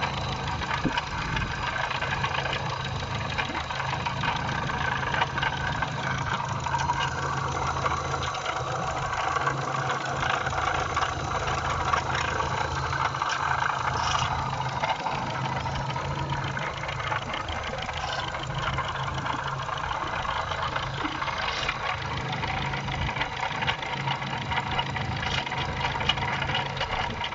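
Opel Astra G engine idling with a steady noise from the belt-driven accessories. The noise comes from a worn water pump whose bearing has heavy play.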